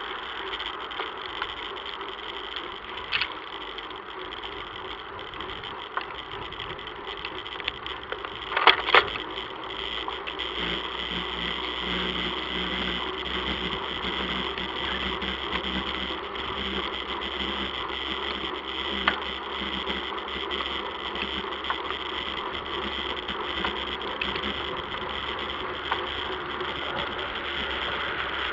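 Bicycle riding on an asphalt road, heard from a bike-mounted action camera: steady tyre and wind noise with small rattles and clicks from the bike, and a few sharp knocks about nine seconds in.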